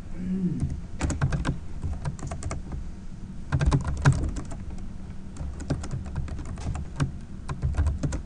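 Computer keyboard typing: irregular runs of keystrokes with short pauses, over a steady low hum.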